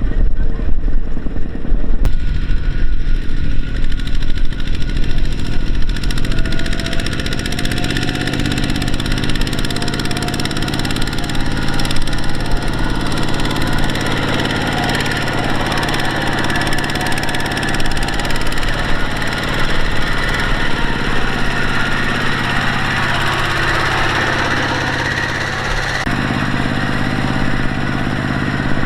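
Heavy machine's diesel engine running, its pitch shifting in places, with an abrupt change about two seconds in and again near the end.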